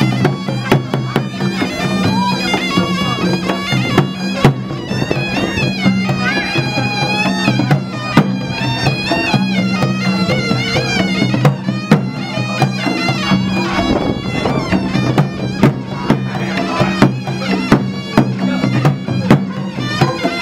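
Traditional Cham ritual music: a shrill, nasal reed wind instrument plays a wavering, ornamented melody over steady low tones, with frequent drum strokes throughout.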